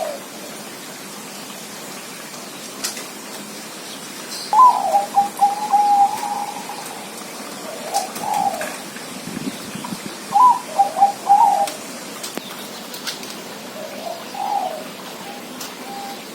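Zebra dove (perkutut) cooing: a series of high, broken coo phrases a few seconds apart, the loudest about four and a half and ten and a half seconds in.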